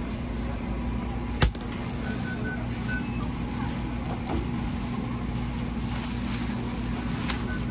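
A steady low mechanical hum, with one sharp click about a second and a half in and a few short, faint high beeps.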